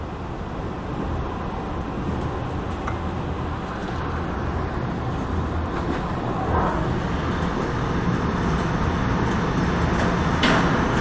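Tornado wind: a steady, heavy rushing noise with a low rumble, growing gradually louder.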